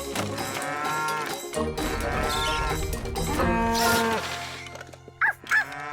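Cartoon cow mooing, several long drawn-out moos, over light background music.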